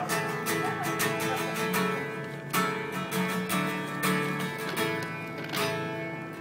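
Acoustic guitar strummed in a steady rhythm, ringing chords with a quick run of strokes.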